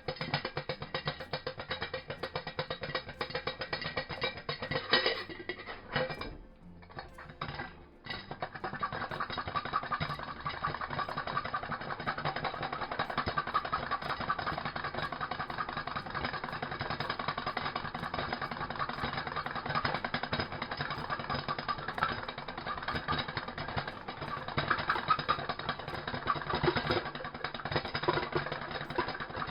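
Popcorn kernels in hot oil cooking in a two-quart pot on a camp stove: a dense, steady crackling and rattling. It dips briefly about six seconds in, then sets in fuller about eight seconds in.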